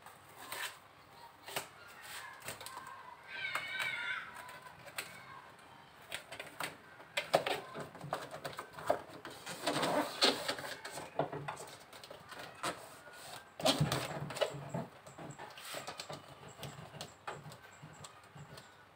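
Irregular rustling, crinkling and soft taps of a foil-faced foam heat-insulation mat being pressed and smoothed by hand onto the underside of a car bonnet. The handling noises come thickest in the middle of the stretch.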